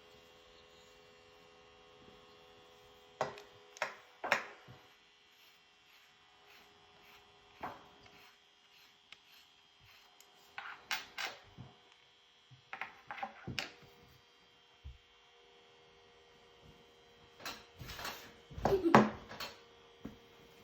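Scattered light clicks and knocks of objects being handled, over a steady electrical hum. Near the end comes a louder cluster of knocks with a brief pitched sound.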